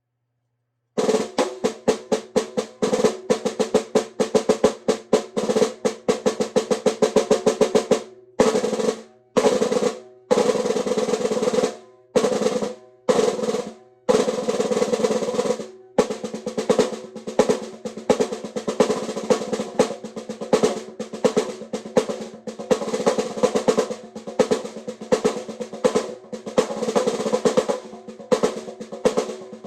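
Handmade birdseye maple stave snare drum being played: about a second in, rapid strokes start, then a run of short rolls broken by brief gaps, then steady fast rolls and patterns.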